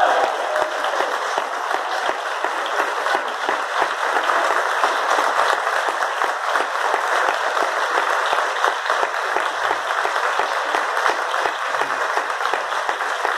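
Audience applauding steadily and densely, with the band's final brass chord dying away at the very start.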